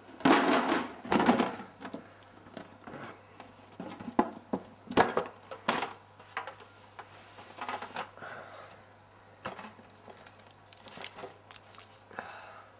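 Handling noise of a metal box and papers: a loud rustling burst in the first second and a half, then crinkling of paper and scattered sharp clicks and knocks as the box is opened and its contents gone through. A faint steady low hum runs underneath.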